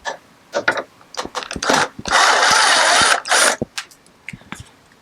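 Cordless 1/4-inch power driver working a step-rail screw: a few clicks of handling, then the driver runs hard for about a second about two seconds in and again briefly just after, with a rattling, ratchet-like mechanical sound.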